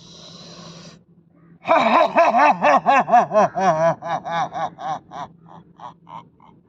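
A man's lion-pose (simhasana) exhalation: first a breathy hiss, then, about two seconds in, a loud roar-like 'aaah' forced from the throat. Its pitch wobbles up and down several times a second, and it breaks into short pulses as it fades.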